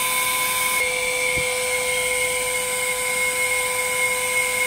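TOP4500 hot-air welding machine's blower motor running steadily with a constant high whine and rushing air hiss. The heater is switched off, so the blower is cooling the heating element down.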